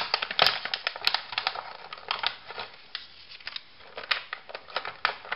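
Clear plastic blister packaging crackling and clicking as it is handled and the charger's parts are pulled out of it: a busy run of irregular sharp snaps and crinkles.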